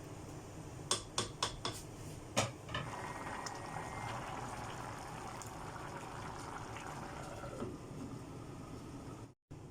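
A few sharp metal clinks of kitchen utensils, then a steady stream of liquid poured into a cooking pot for about five seconds, stopping near the end.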